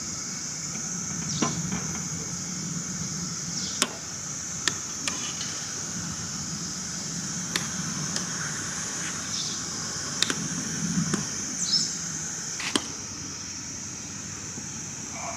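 About a dozen sharp knocks and clicks, scattered and irregular, over a steady high-pitched hiss of outdoor ambience.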